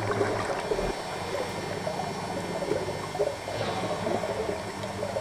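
Underwater water noise: an irregular gurgling, sloshing wash around the camera.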